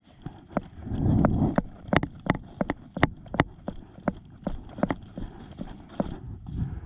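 Airsoft fire: a run of sharp, irregular cracks, about two or three a second, with a low rustle about a second in.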